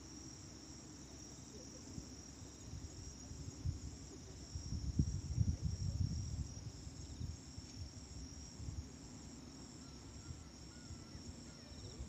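Crickets chirring steadily on one high note, with gusts of sea breeze buffeting the microphone as a low, uneven rumble that is strongest about five to six seconds in.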